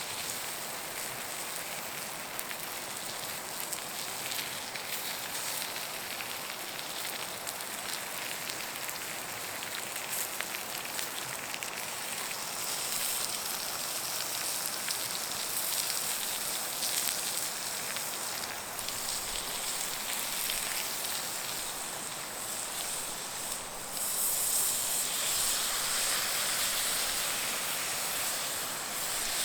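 Wood fire crackling and hissing in a fire pit. About 24 seconds in, a louder, steadier hiss takes over.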